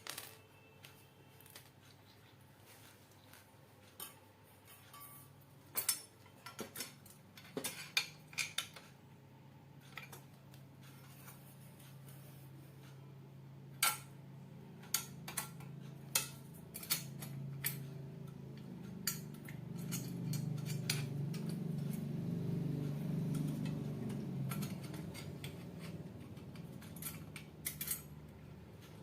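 Metal grinder parts being handled and fitted together by hand: scattered light clinks and taps of metal on metal. A low steady hum rises in the middle of the stretch and then fades.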